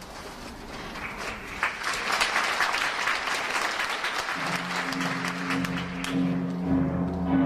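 Theatre audience applauding, swelling over the first couple of seconds. About halfway through, the ballet's music comes in beneath the clapping with low held notes.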